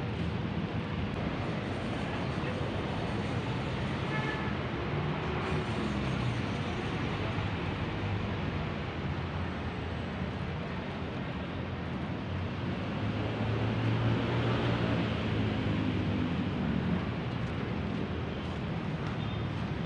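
City street traffic ambience: a steady hum of passing vehicles, with one engine getting louder and then fading about two-thirds of the way through.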